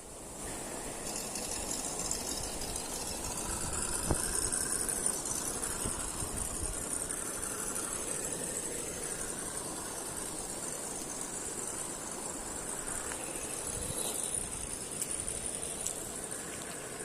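RGT EX86010-CJ 1:10 scale RC crawler driving: its electric motor and gears whine steadily, with the plastic body and chassis rattling and a couple of sharp knocks, one about four seconds in and another near the end.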